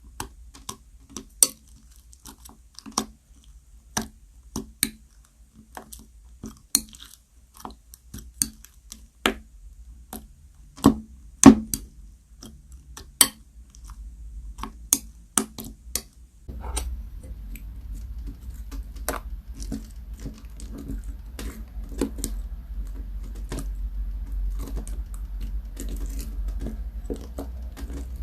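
Slime-making handling sounds: sharp, irregular clicks and taps of plastic containers and utensils. About halfway through, these give way to a continuous stirring or scraping sound full of small crackles, as the glue-based slime ingredients are worked.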